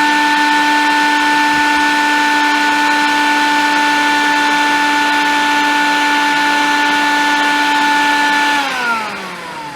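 Wet vac motor running steadily with a high whine while its hose sucks out a clogged air conditioner condensate drain line. Near the end it is switched off and the whine falls in pitch as the motor spins down.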